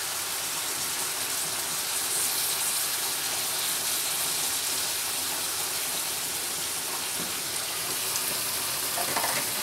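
Spice-coated chicken pieces frying in oil in a metal kadhai: a steady sizzle.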